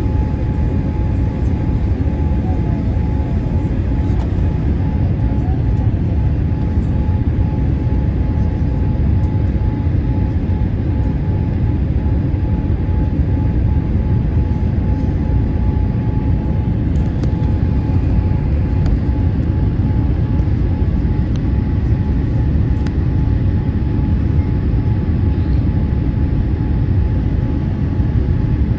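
Jet airliner cabin noise during the descent to landing: a steady rumble of engines and airflow over the lowered flaps, with a thin steady hum riding on top.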